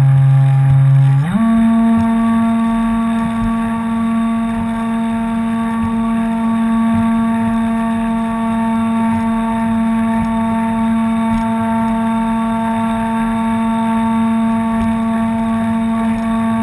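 RC tug boat's motor whining steadily. About a second in, its pitch climbs quickly to a higher note as the throttle is opened, then holds there while the boat runs at speed.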